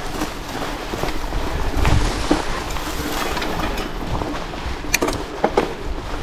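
Mountain bike being ridden over a stony track: a steady rushing of tyre and ride noise, broken by sharp clicks and knocks of the bike over rocks, several of them in the second half.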